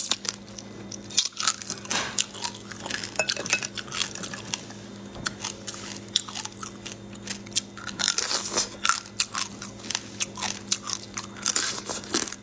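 Close-up crunching of shrimp shells being bitten and chewed: quick, irregular clicks and crackles that come thickest about two-thirds of the way through.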